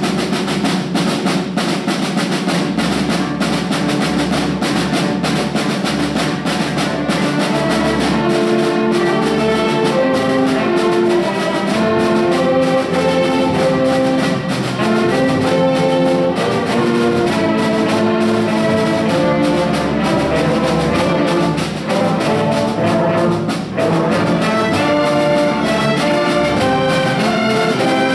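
A school symphony orchestra playing, with strings, brass and percussion sounding together.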